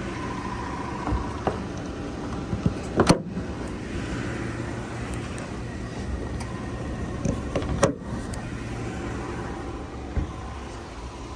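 Rubber hood latches on a 2015 Jeep Wrangler being snapped down, two sharp clicks about five seconds apart, with a few lighter knocks, over a steady low hum.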